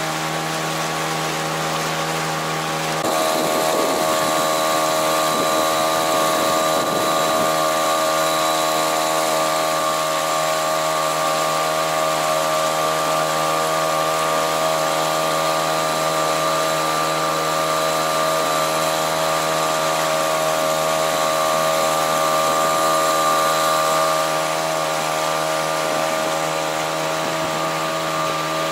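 Mercury 3.3 M two-stroke outboard motor running steadily under way, a new engine being run in. Its revs and loudness rise a little about three seconds in and ease back slightly near the end.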